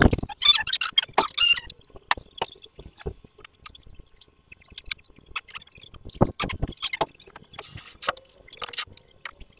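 A string of irregular light clicks and knocks, with a few sharper taps among them, uneven in spacing.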